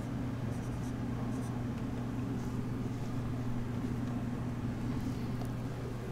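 Dry-erase marker writing on a whiteboard: faint, short scratchy strokes, mostly in the first half, over a steady low hum.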